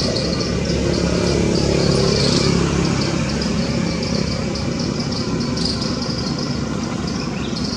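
Steady low engine hum with a continuous high hiss above it.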